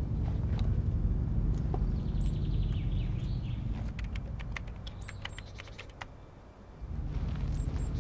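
A deep, steady low rumble that dips and swells back after about six seconds. Between about four and five and a half seconds in comes a quick run of sharp clicks like typewriter keys: a typing sound effect for a title that spells itself out letter by letter.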